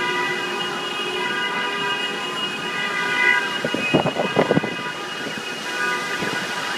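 Several car alarms sounding together, their held tones overlapping in a steady blare, with a brief rush of noise about four seconds in. The alarms have been set off by floodwater, which the owner guesses is shorting the cars' circuits.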